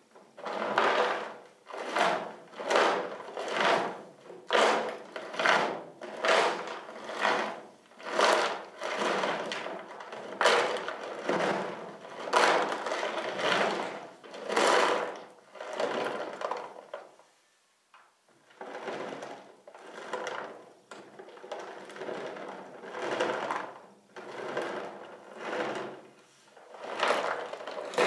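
Rhythmic rubbing or brushing strokes along a horse's coat, about one a second, with a short break about two thirds of the way through.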